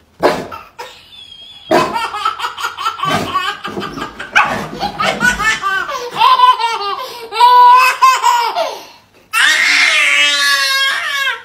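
Baby laughing hysterically in repeated high-pitched belly laughs, coming in bouts with a short break about nine seconds in.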